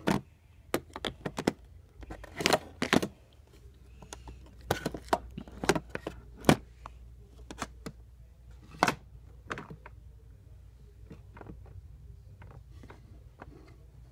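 Hard objects being handled: a string of sharp clicks and clacks, as of phones knocking together, thick for the first nine or ten seconds and only a few after.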